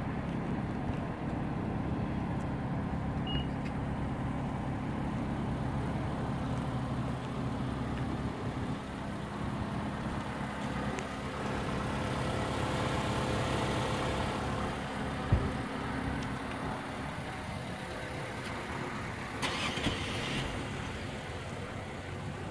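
An engine idling steadily, with a single sharp knock about fifteen seconds in.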